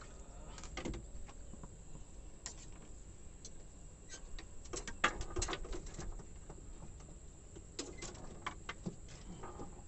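Scattered light clicks, taps and knocks of fishing tackle being handled in a small aluminium boat, busiest about five seconds in, over a low steady rumble.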